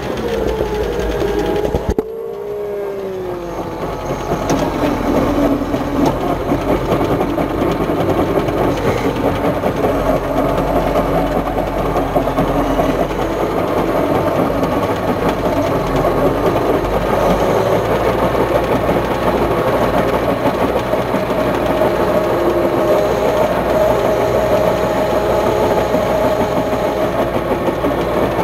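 John Deere 6600 tractor engine running steadily under load, driving a rotary harrow combined with a seed drill, with a steady mechanical whir. About two seconds in the sound drops suddenly and dips in pitch, then builds back up to a steady run.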